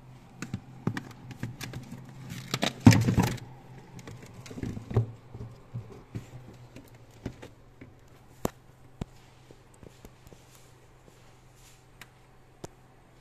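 Scattered clicks and knocks of handling, with a louder rustling scrape about three seconds in, over a steady low hum.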